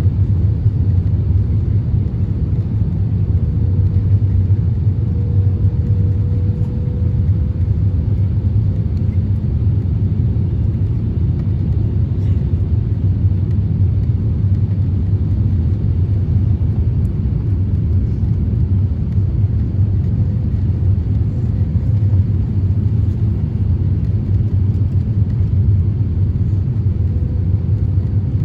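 Steady low rumble inside the cabin of an Airbus A350-1000 in flight: engine and airflow noise from its Rolls-Royce Trent XWB engines, with a faint steady hum running underneath.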